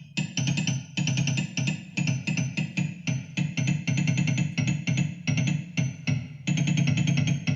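Synthesizer notes played from plant bioelectric impulses picked up by electrodes and a resistance transducer: a quick stream of short keyboard-like notes, about four a second, over a low sustained tone.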